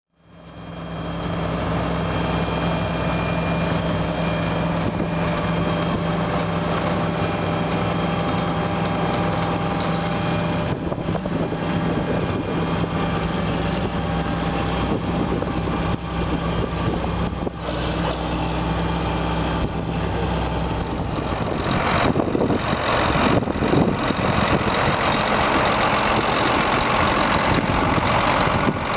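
John Deere 9300 tractor's diesel engine idling with a steady hum. Some three-quarters of the way in, the sound grows louder and rougher and the even hum breaks up.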